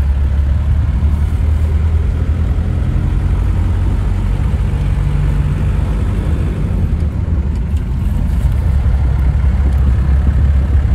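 Ambassador Mark 2's BMC Stride diesel engine idling steadily: a low, even rumble.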